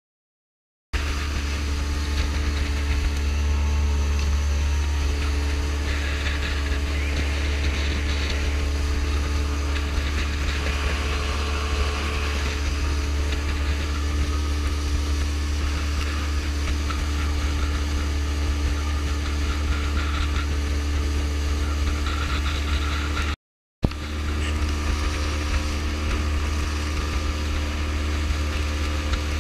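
Outboard motor of an open fishing panga running steadily at speed, with rushing wind and spray from the hull. It starts after about a second of silence and cuts out briefly a little past three-quarters through.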